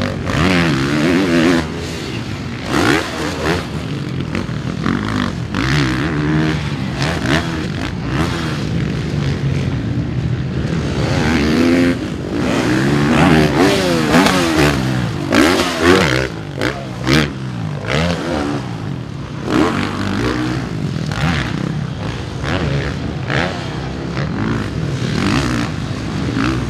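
Suzuki RM-Z450 motocross bike's single-cylinder four-stroke engine revving hard and dropping off again and again, its pitch sweeping up and down with each throttle opening and chop as it is ridden around a supercross track.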